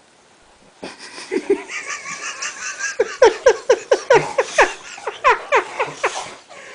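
Boxer dogs barking in a quick run of short barks, about three to four a second, for roughly three seconds, after a stretch of higher-pitched vocalising from about a second in.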